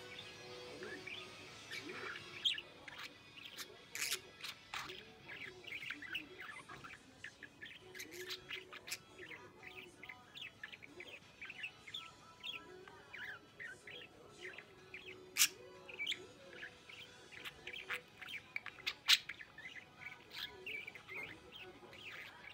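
Budgerigar warbling and chattering: a continuous, fast babble of short chirps and squeaks broken by a few sharp clicks. This is the excited, speech-like warble of a happy budgie that is close to forming words but not quite.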